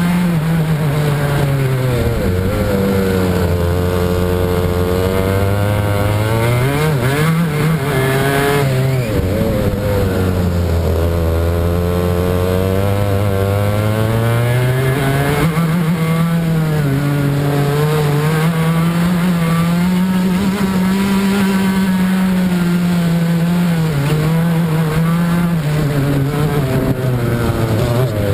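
Racing kart engine heard onboard at full race pace, its pitch repeatedly dropping as the driver lifts for corners and climbing again as it revs out along each straight.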